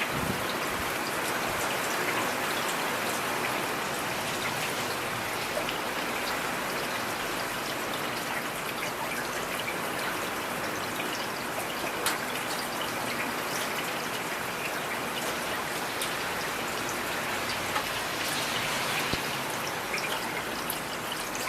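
Steady rain falling, an even hiss with scattered individual drops ticking; one slightly sharper drop about halfway through.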